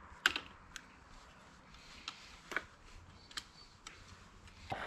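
Hand pliers clicking and tapping against the metal internals of a Volkswagen 020 manual transmission during teardown: a sharp click about a quarter second in, then a handful of lighter, irregularly spaced clicks.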